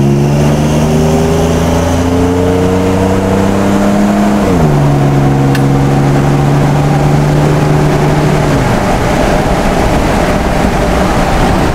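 Straight-piped Ford F-150 EcoBoost V6 accelerating, heard from inside the cab. The engine note climbs, drops at a gear change about four and a half seconds in, holds, then fades out near the end, leaving road and tyre noise.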